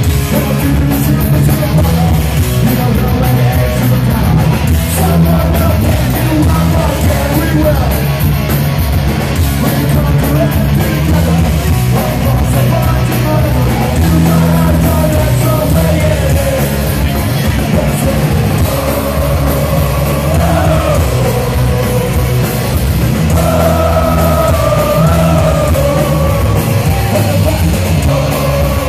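Punk rock band playing live at full volume: distorted guitars, bass and drums with shouted singing over them, heard from inside the crowd.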